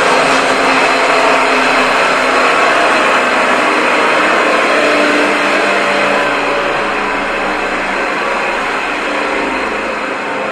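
Pedal-powered blower of a Sutcliffe Speakman air filtration unit running as it is pedalled: a loud, steady rushing whir with a faint hum, easing off a little over the last few seconds.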